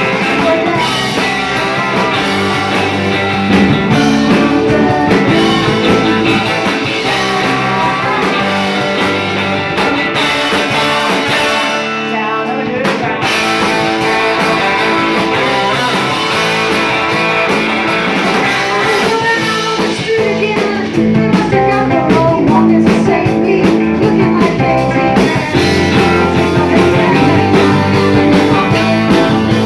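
Live rock band playing loud: electric guitars, electric bass and a drum kit, with a woman singing lead. About twelve seconds in, the bass and drums cut out for a moment before the band comes back in.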